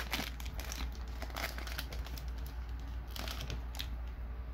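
Foil wrapper of a trading card pack crinkling and tearing as it is ripped open along the crimped seam. The crackling comes in bursts, busiest near the start and again about three seconds in.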